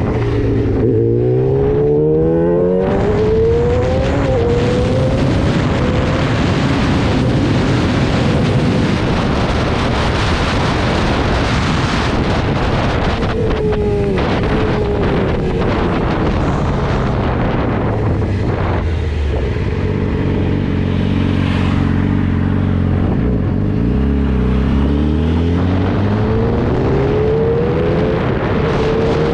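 Yamaha YZF-R6 sport bike's high-revving inline-four, heard from onboard while riding, rising in pitch as it accelerates through the gears in the first few seconds, dropping in steps on deceleration and downshifts in the second half, and rising again near the end. Heavy wind noise on the microphone runs under it throughout.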